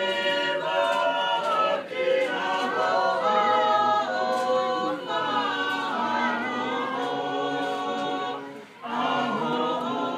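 A group of voices singing together unaccompanied, in sustained phrases with several parts at once, and a brief breath-pause near the end.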